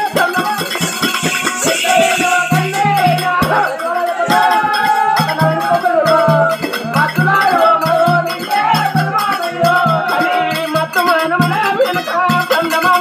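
Folk dance music with a fast, steady beat, a wavering melody over it, and ankle bells jingling in time with the dancers' steps.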